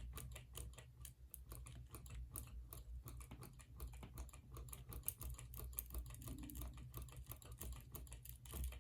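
Faint, rapid and irregular light clicking from a ceiling fan's motor bearings as the fan is wiggled and turned by hand, over a low hum. These are the gentle bearing clicks, not the louder ticking that the owner is trying to track down, which does not show up here.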